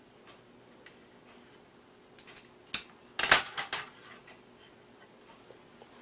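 Chopsticks clicking against ceramic plates: a few light clicks, then a sharp click and a quick run of clatters about three seconds in.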